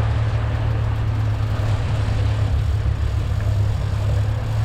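Boat engine running steadily under way, a constant low drone with a broad hiss over it.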